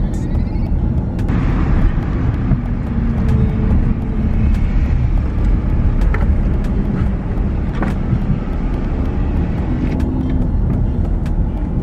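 Car driving, its engine and tyre rumble heard from inside the cabin as a steady low noise, with a few faint clicks.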